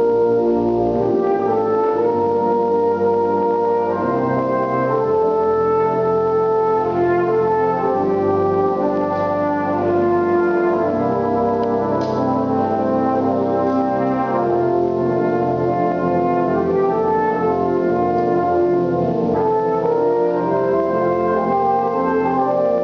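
Brass band music: a soloist plays a melody on a small valved brass horn over held chords from the band.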